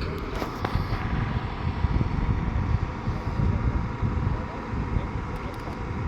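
Heavy diesel earthmoving machinery running with a deep, uneven rumble, with a few sharp clanks in the first second.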